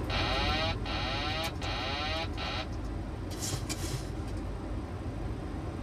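Boeing 737-800 autopilot disconnect warning: a warbling, sweeping siren tone repeating about four times, then stopping, which signals that the autopilot has been switched off for a hand-flown landing. It sounds over the steady rumble of flight-deck noise, with a short hiss a little later.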